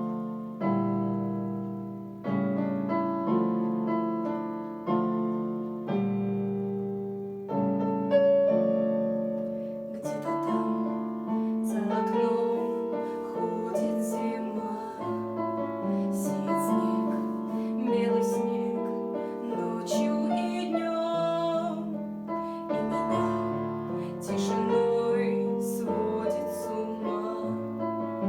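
Instrumental piano intro of a pop ballad: chords struck every second or two, each dying away. About ten seconds in, cymbals and a fuller backing join the piano.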